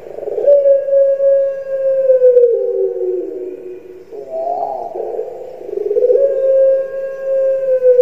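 Puter pelung dove (a Javanese breed of Barbary dove) calling: two long, drawn-out coos, each a steady held note that slides down at its end, with a short rising-and-falling note between them.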